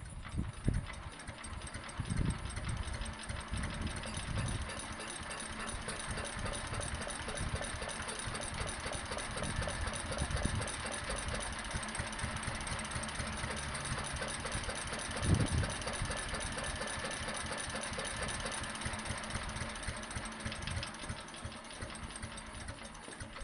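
Fowler 1PA stationary engine running on its carburettor with an even beat, with one louder low thump about two-thirds of the way through.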